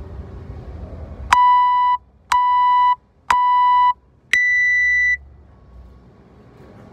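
Workout interval timer's start countdown: three short beeps a second apart, then one longer, higher beep as the clock starts running.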